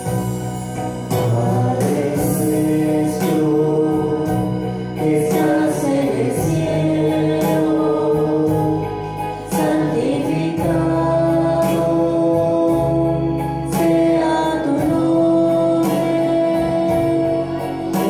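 Choir singing religious music with instrumental accompaniment: held sung notes over a moving bass line.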